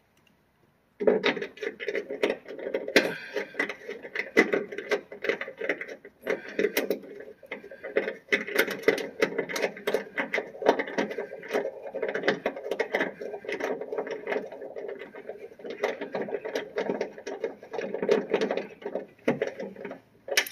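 Ratchet wrench with a 10 mm socket clicking rapidly and continuously as it turns the single bolt that holds the trunk lock cylinder, starting about a second in.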